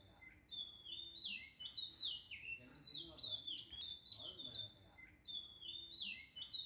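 Looped birdsong backing track: a cluster of quick falling chirps repeats in the same pattern about every two seconds, over a steady thin high tone.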